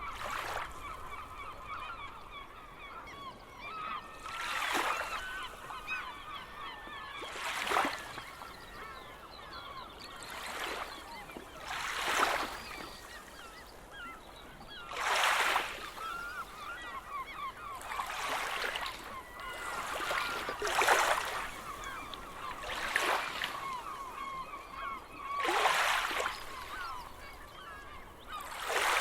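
Small sea waves breaking on the shore every two to three seconds, each a short rushing wash, under a flock of birds calling constantly.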